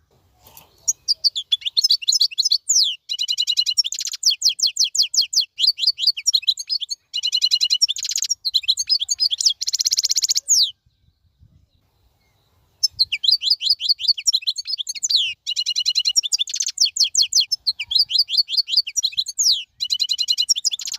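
A songbird singing long, fast phrases of rapidly repeated high chirps and trills, with a pause of about two seconds near the middle.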